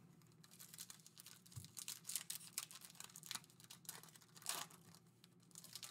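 Foil wrapper of a Panini Donruss Elite trading card pack crinkling and tearing as it is handled and opened by hand. It gives faint, irregular crackles, with a few louder rustles.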